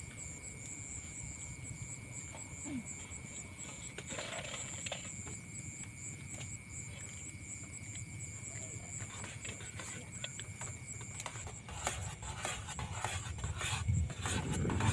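Wind buffeting the microphone as a steady low rumble, with a faint high-pitched whine over it that stops about eleven seconds in. Near the end come clattering knocks and the rumble grows louder.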